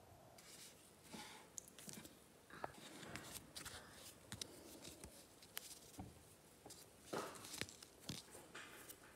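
Faint rustling and light clicks of hands handling a wire-framed tulle petal and a spool of embroidery thread.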